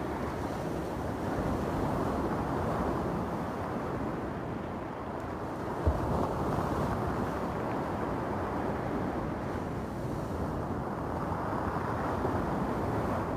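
Small waves breaking and washing over a pebbly beach: a continuous rush of surf that swells and eases every few seconds, with wind rumbling on the microphone. A single brief low thump about six seconds in.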